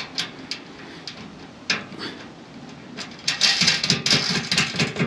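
Handling of hardware and tools: a few separate clicks and knocks, then about two seconds of dense, loud clattering and rattling from about three seconds in.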